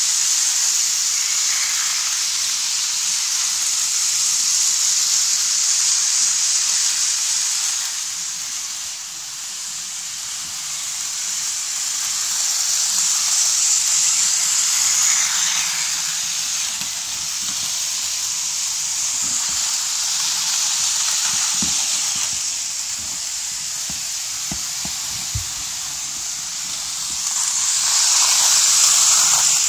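OO-scale model trains running on sectional track: a steady, hissing whir of the locomotives' motors and wheels that swells and fades as they come close and move away. A few faint clicks come about two-thirds of the way through.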